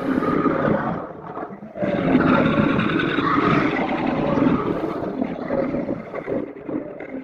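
Monster roar sound effect: one roar trails off in the first second and a half, then a second, long roar rises and slowly fades away near the end.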